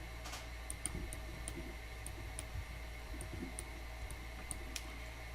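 Faint light ticks, two or three a second and not quite evenly spaced, over a steady low hum.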